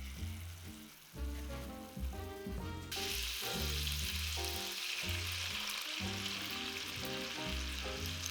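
Food sizzling in a hot frying pan, starting suddenly about three seconds in as it goes into the pan, over background music.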